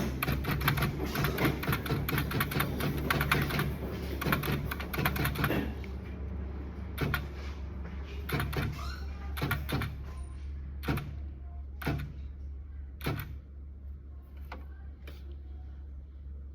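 Electric typewriter keys striking in a fast run for about six seconds, then slowing to single keystrokes about once a second, fading to lighter taps near the end. A steady low hum runs underneath.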